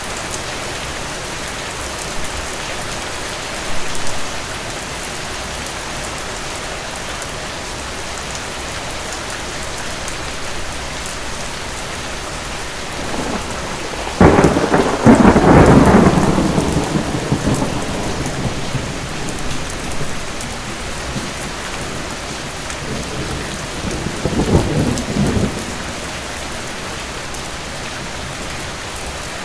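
Steady heavy rain with a sharp thunderclap about halfway through that rumbles on for several seconds and dies away, then a second, weaker roll of thunder near the end.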